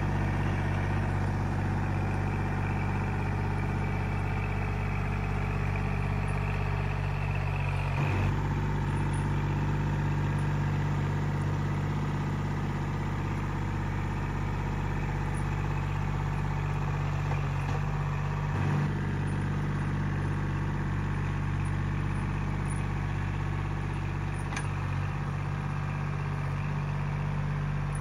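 Kubota L2501 tractor's three-cylinder diesel engine running steadily at a constant speed while pushing snow, with a couple of brief clunks about eight and about eighteen seconds in.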